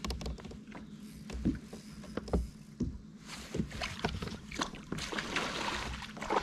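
A hooked European sea bass thrashing and splashing at the surface beside the kayak, starting about three seconds in, with scattered clicks and knocks of handled tackle and gear before it.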